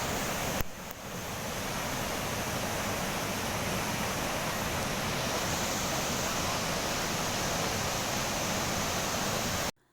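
Waterfall at Davis Falls: steady rushing of falling water, with a brief break about half a second in, cutting off abruptly just before the end.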